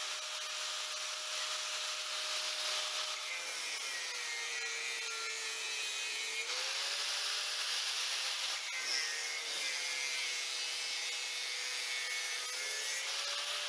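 Hand-held electric angle grinder cutting through a steel strip: a steady harsh grinding hiss over the motor's whine. The motor's pitch sags twice as the disc bears down on the metal and climbs back as it eases off.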